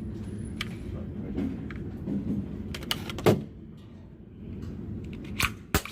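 Four sharp gunshot bangs over a steady low rumble: two close together about three seconds in, the second the loudest, and two more near the end.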